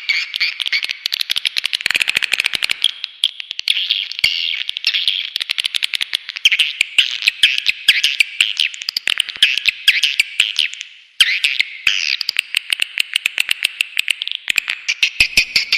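Swiftlet call track: a dense, rapid stream of edible-nest swiftlet chirps and twitters, played to lure swiftlets into a swiftlet house. It breaks off for a moment about eleven seconds in, then resumes.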